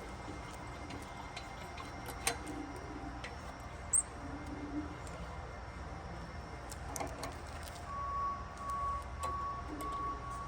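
Quiet workshop room tone: a low steady hum with a few light clicks and taps from parts being handled. Near the end a repeating high beep starts up and keeps going.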